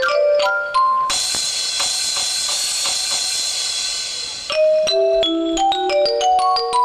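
Electronic music played live with Buchla Lightning wands driving a synthesizer: short pitched notes in quick succession, then a dense, bright, hissy shimmering wash for about three seconds, then rapid stepped notes again.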